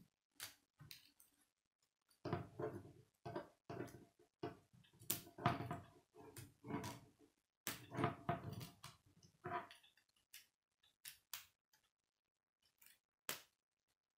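K'nex plastic rods and connectors clicking and rattling as they are handled and snapped together, in quick clusters of clicks, then a few separate sharp clicks near the end.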